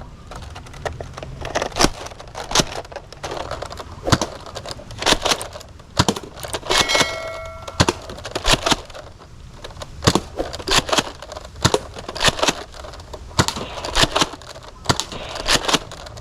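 A run of sharp clicks and knocks at uneven intervals, with a short steady tone about seven seconds in.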